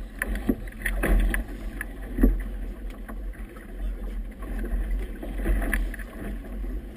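Wind buffeting the microphone in a 17–20 knot breeze, a low rumble that swells and fades, with irregular flapping and slapping from a flag and choppy water against a boat.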